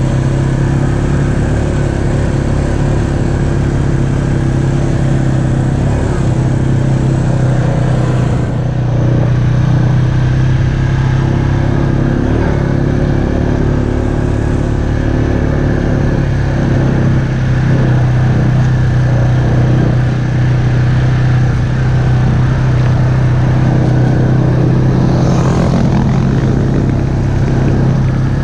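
ATV engine running at a steady pace under way, a continuous low hum with no hard revving, heard from the machine itself.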